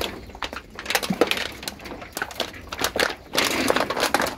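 Dog eating from a plastic bowl, chewing and crunching its food in irregular crackling clicks that grow busier near the end.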